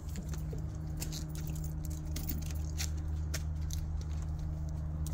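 Light, irregular crunching and ticking of footsteps on dry ground litter of pine needles and leaves, over a steady low hum from a motor or machine running somewhere close.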